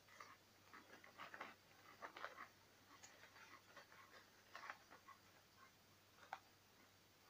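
Faint, scattered crackles in a few short clusters from a man eating barbecue potato chips and handling the crinkly chip bag.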